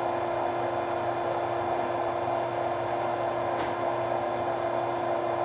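Cincinnati-Milacron R-77 universal cylindrical grinder running through its automatic plunge grinding cycle: a steady machine hum with one constant tone, unchanging throughout.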